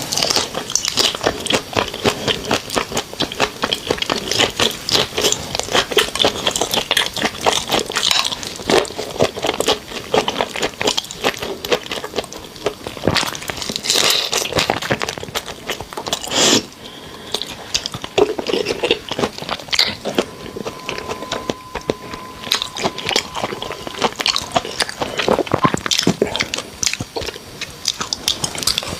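Close-miked eating of raw shrimp marinated in garlic and rice wine: wet crunching, crackling and chewing as the shells are peeled and the flesh is bitten, a dense run of small clicks throughout.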